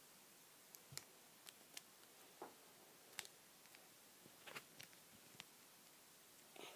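Near silence with faint, scattered clicks and taps, about a dozen in all, from small plastic toy figures and accessories being handled.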